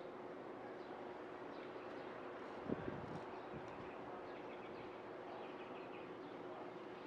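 Outdoor background: a steady low hum and noise with scattered faint bird chirps, and a single short soft knock a little under three seconds in.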